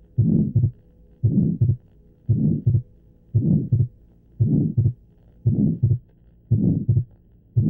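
Stethoscope recording of an atrial septal defect heartbeat, about one beat a second. Each beat carries a systolic murmur and a second heart sound split the same way in breathing in and out (fixed splitting), as is typical of this defect.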